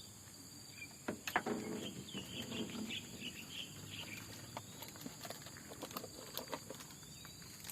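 Outdoor insect chorus, crickets among them, trilling steadily at a high pitch, with a quick series of short chirps from about two to four seconds in and a sharp knock at about one second.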